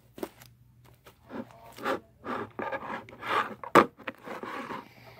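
Fluffy slime made with shaving cream being squeezed and stretched by hand: a run of irregular squishy bursts, with one sharp snap about three-quarters of the way through.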